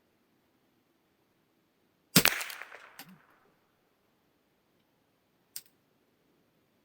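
A single .22 long rifle shot from a Kongsberg M22 rolling-block rifle about two seconds in, its report dying away over about a second and a half. A sharp click follows about a second after the shot, and another comes near the end.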